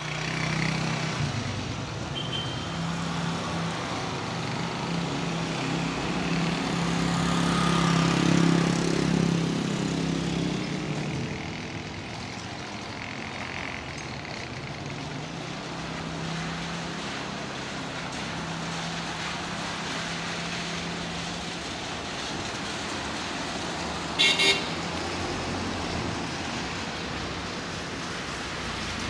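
A CRH1 electric multiple-unit train rolling past on its way into the station, a steady run of train and road traffic noise with a low hum, loudest about eight seconds in and easing after that. A short double horn toot sounds late on.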